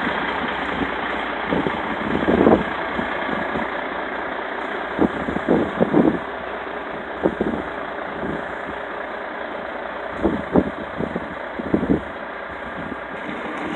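Diesel semi truck running at low speed as it slowly pulls a tarped flatbed trailer out, a steady engine and rolling noise, with several brief low thumps scattered through.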